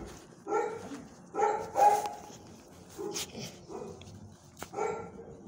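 Dogs barking repeatedly, about six short barks, the loudest pair around a second and a half to two seconds in.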